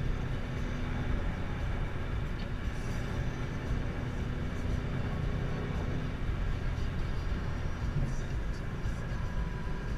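Chevrolet Camaro ZL1 heard from inside the cabin while cruising at highway speed: a steady low drone of engine, tyres and wind, without revving or gear changes.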